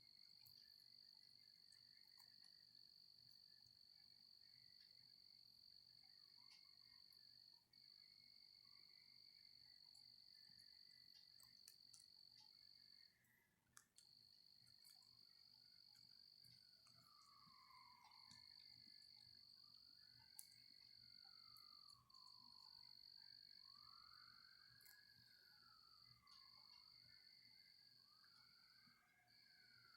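Faint night insect chorus: a steady high trill that breaks off briefly a few times. From about halfway through, faint sliding notes rise and fall every second or two underneath it.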